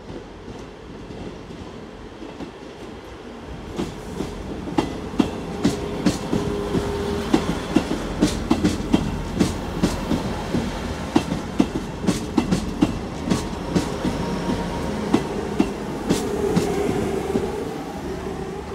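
Three-car Class 158 diesel multiple unit passing at speed. From about four seconds in its wheels click rapidly over the rail joints above a steady rumble, and a held hum rises and fades near the end.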